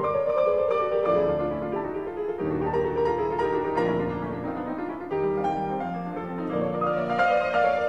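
Background piano music, with notes and chords changing every second or so.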